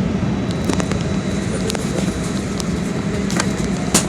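Airliner cabin noise: a steady low drone with scattered light clicks and rattles, and one sharper click near the end.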